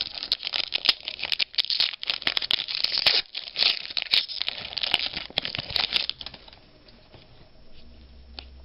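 Trading-card pack wrapper crinkling and tearing, a dense run of crackles and sharp clicks that dies down about six seconds in.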